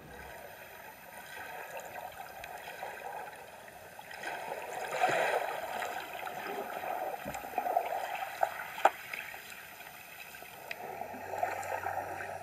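Water sloshing and gurgling around a camera held underwater, muffled and uneven, with a couple of sharp clicks about two-thirds of the way through.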